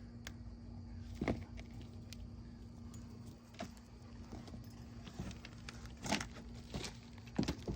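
Sweet potatoes and soil being handled during a harvest from a grow bag: a few scattered rustles and light knocks over a steady low hum.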